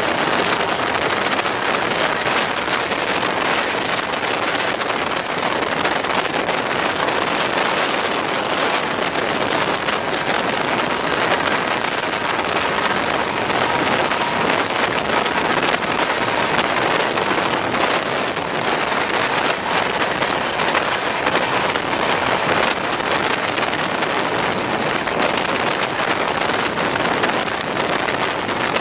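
Steady loud rush of wind buffeting the microphone over the wheel and track noise of an express passenger train running at speed, heard from an open coach door.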